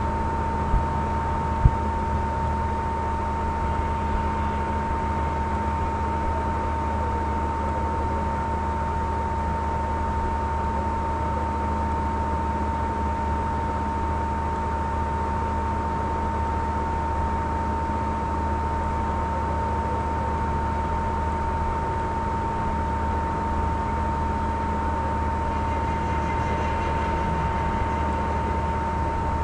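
Steady hiss and low hum with a constant high-pitched whine, a background noise floor with no sound from the work itself; two short clicks about a second in.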